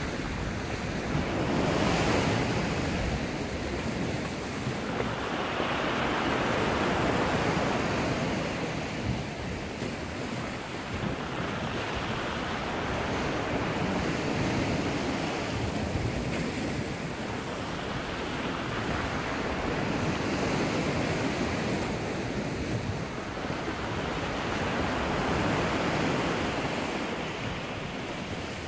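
Rough sea surging and breaking against the rocks below, a rushing wash that swells and falls back every four to five seconds.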